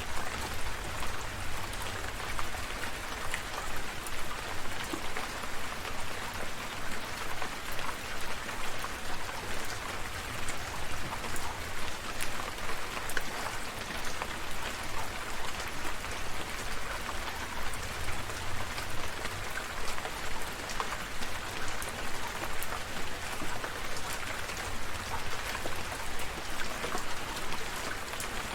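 Steady rain falling, with many separate drops ticking over an even hiss and a low rumble underneath.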